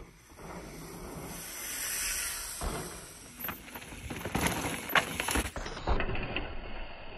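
Mountain bike descending a rough trail: a rising hiss of tyres on loose dirt, then a run of clattering knocks and rattles as the bike drops over rock, with sharp knocks about five and six seconds in.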